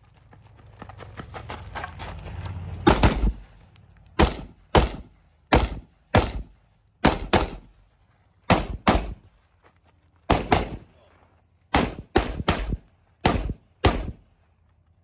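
TTI TR-15 AR-15 rifle firing about seventeen rapid shots, mostly in quick pairs, during a competition stage.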